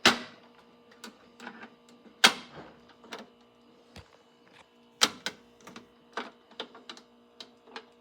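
Irregular series of sharp mechanical clicks and knocks, the loudest right at the start, about two seconds in and about five seconds in, over a faint steady hum.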